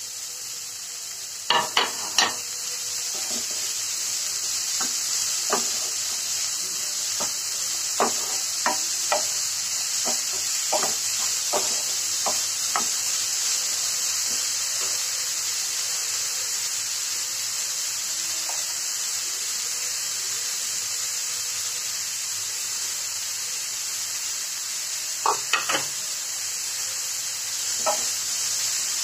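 Grated cauliflower sizzling as it fries in a nonstick pan. A spatula stirs it, scraping and knocking against the pan, with a cluster of knocks about a second and a half in, scattered knocks over the next ten seconds, and more near the end.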